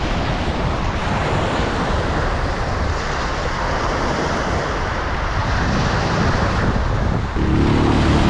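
Sea surf washing, with wind buffeting the microphone. About seven seconds in, a steady low drone with several overtones cuts in over it.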